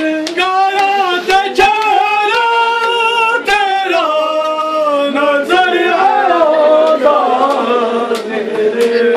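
Men's voices singing a Shia mourning lament (noha) together, slow held notes that slide between pitches, with sharp slaps breaking in now and then.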